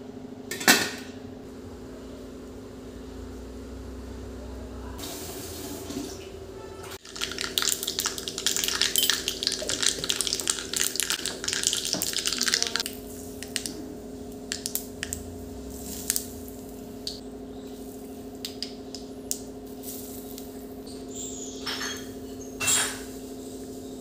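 A steel lid clanks down onto a steamer pot a little under a second in. From about seven seconds in, hot oil sizzles and crackles in a small tempering (tadka) pan for about six seconds, followed by scattered light clicks and a short clink near the end, all over a steady low hum.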